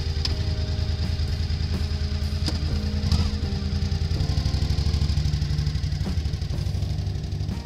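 Loaded touring motorcycle's engine pulling away and easing off, under background music.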